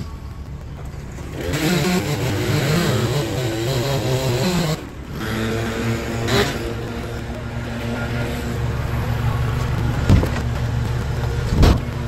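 Kubota compact tractor's diesel engine running, revving unevenly for about three seconds, then settling into a steady run as the grapple works a log. A few short sharp knocks cut in about six and ten seconds in and again just before the end.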